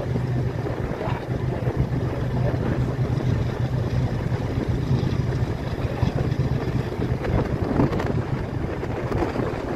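Passenger train running at speed, heard from an open coach window: a steady rumble of wheels on the track with a constant low hum, and wind buffeting the microphone.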